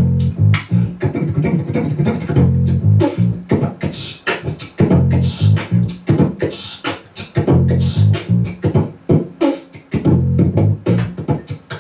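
Beatbox percussion performed into a microphone, a fast stream of clicks and snare-like mouth hits, over held low bass-pedal notes that change every second or so.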